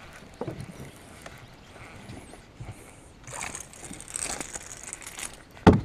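A small smallmouth bass being reeled in and lifted out of the water, splashing at the surface for a couple of seconds midway. A sharp, loud knock near the end.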